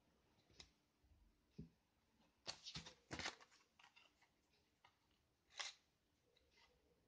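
Faint handling noises of small plastic and card items: scattered light clicks, a quick cluster of scraping, rustling strokes about two and a half to three seconds in, and one more short rustle near five and a half seconds.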